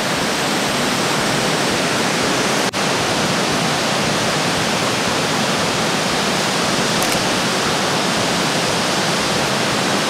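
Multi-tiered waterfall: a loud, even rush of falling water. The sound drops out for a split second just under three seconds in.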